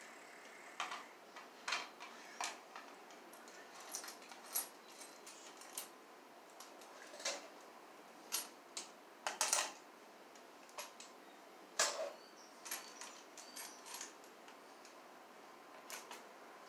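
Irregular light clicks and taps of a blue plastic electrical box and small parts being handled and fitted together, over a faint steady hiss.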